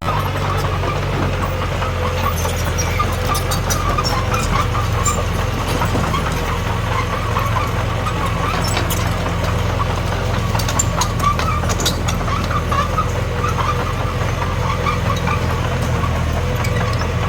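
Diesel engine of heavy earthmoving machinery running steadily, with scattered light metallic clicks and clinks over it.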